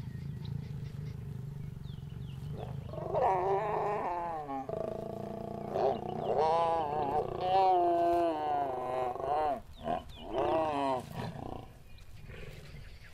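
African lions mating: a low rumble, then loud, wavering snarls from the lioness in three bouts from about three to eleven seconds in, the middle bout the longest, before it dies down.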